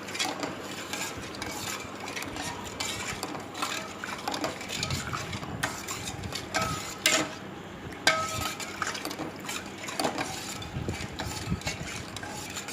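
A spoon stirring sweetened milk in a pan on the stove, with irregular scraping and clinking against the pan. A few sharper, ringing clinks come about halfway through.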